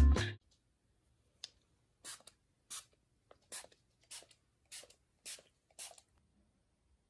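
Background music cuts off at the start. Then a faint click and seven short, soft rustles of bedding come about two-thirds of a second apart.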